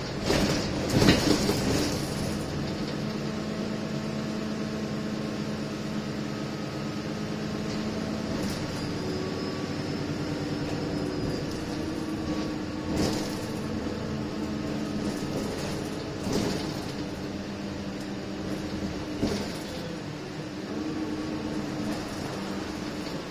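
Interior of an Alexander Dennis Enviro 300 single-deck bus on the move: the diesel engine and drivetrain run steadily with a low hum that shifts in pitch about eight seconds in. Sharp rattles and knocks from the body and fittings come near the start and several more times.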